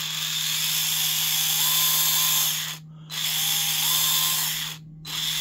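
Speed Hex FlipOut 2nd Gen articulating electric screwdriver running free, its motor and gears whirring with a whine that steps up in pitch as the trigger is pressed further: coarse variable speed with a few distinct steps rather than a smooth range. It stops briefly twice, about three and five seconds in, and starts again each time.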